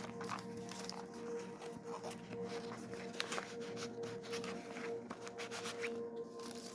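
Soft background music with held notes, under light rustling and tapping of paper and cardstock pages being handled and turned.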